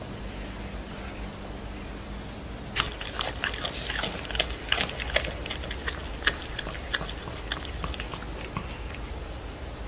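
Domestic cat chewing on a rat it has caught: irregular sharp crunching clicks that start about three seconds in and keep on, over a low steady hum.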